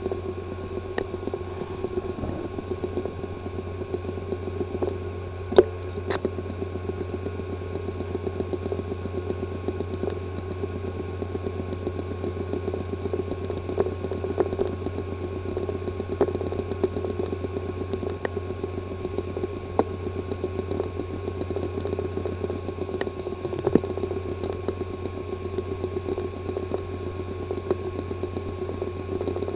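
Hard drive with a physically damaged disk assembly running with a steady buzz and rapid, irregular ticking, with one louder click about five seconds in.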